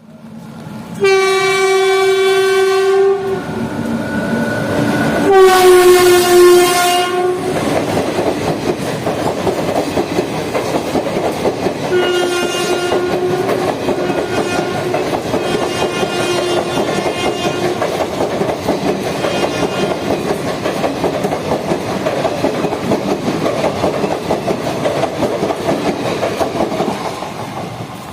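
Express train's locomotive horn sounding two long blasts, the second louder, then the train passing at speed with a steady rumble and clatter of wheels over rail joints. Shorter, fainter horn blasts come during the pass, and the noise tails off near the end.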